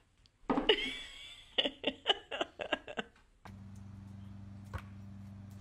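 Dog biting and chewing a slice of watermelon: a quick run of wet crunches and clicks for about three seconds, with a short high squeak near the start. It then gives way to a steady low hum with a single knock.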